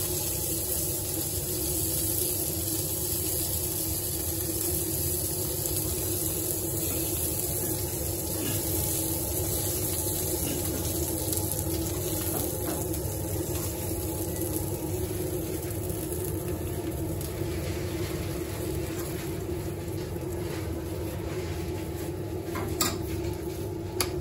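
Steady sizzling hiss and low hum of a charcoal grill with meatballs and bread cooking on the grate, with a couple of sharp clicks near the end from metal tongs.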